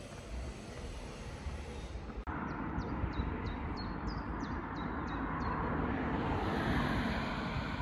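Road traffic noise swelling as a vehicle passes, loudest near the end, while a bird repeats short, high, falling chirps about three times a second for a few seconds.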